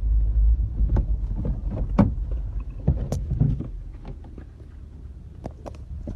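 Low rumble of the vehicle, heard from inside the cabin, fading in the first second. It gives way to a run of scattered knocks and clicks as the car door stands open and things are handled inside the cabin, the loudest about two and three seconds in.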